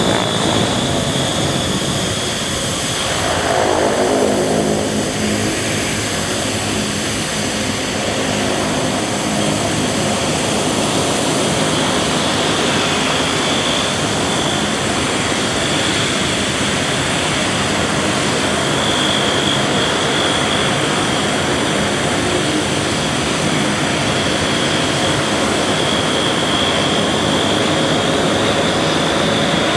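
Twin-turboprop NAMC YS-11 airliner flying past with its Rolls-Royce Dart engines running: a steady high whine over propeller drone, with the pitch dropping as it passes about three seconds in.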